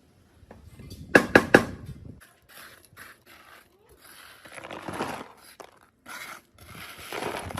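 Workshop handling and scraping of rusty metal: three sharp clacks just over a second in, then a series of short scraping strokes with brief pauses between them.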